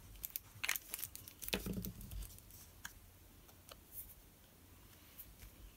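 Crafting handling sounds: light clicks, taps and paper rustle as a plastic liquid-glue bottle and small paper pieces are handled and set down on a craft mat, bunched in the first two seconds, then a few faint ticks.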